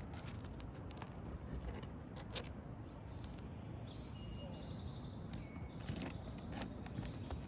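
Scattered light clicks and taps of hand tools working loose asphalt roof shingles, over a steady low rumble.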